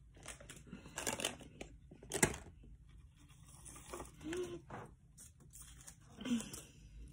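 A chip bag crinkling as the last crumbs are poured into the mouth, then dry seaweed snack sheets being handled and torn, with crunching as chips and seaweed are chewed; a string of short, sharp crackles, the sharpest a little over two seconds in.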